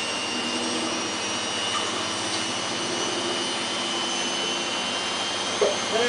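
Samsung WF8804RPA washing machine in its final spin, the drum running steadily at speed, with a steady high whine over an even rushing hum.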